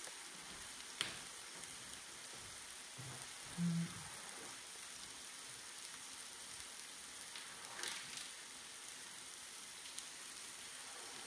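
Spinach mixture sizzling steadily as it fries in a pan, with a wooden spoon stirring and knocking against the pan a few times. A short low hum sounds about four seconds in.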